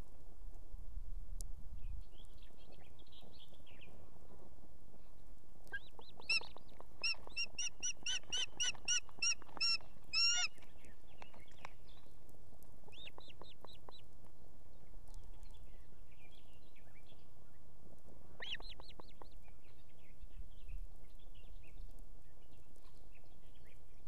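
Ospreys calling: a loud series of about a dozen whistled calls, roughly three a second, beginning about six seconds in. Shorter bursts of calls follow around thirteen and eighteen seconds in, with softer chirps between them.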